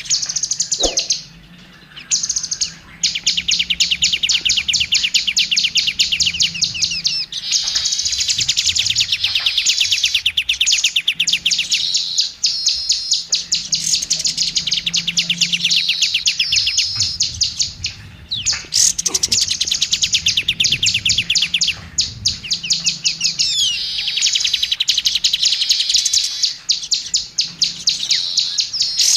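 Oriental magpie-robin (kacer) singing a long, fast song of rapid, rattling high notes, broken by short pauses about two seconds in and again near eighteen seconds.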